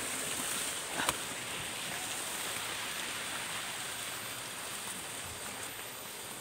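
Small stream flowing with a steady rush that slowly fades, with a single short knock about a second in.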